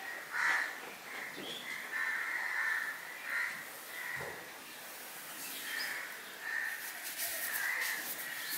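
Birds calling outside in short, harsh, repeated calls about once a second. Faint clicks of fingers mixing rice on a steel plate sound in between.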